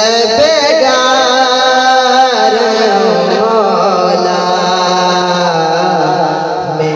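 Man singing a naat, an Urdu devotional song, drawing out long wavering notes over a steady low held tone.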